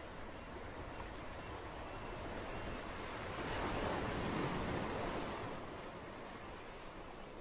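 Ocean surf: a steady wash of waves that swells to a peak about halfway through and then recedes.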